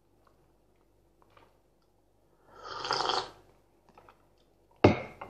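Hot tea slurped from a mug about halfway through, one noisy sip lasting under a second, then a sudden, loud, breathy sound near the end.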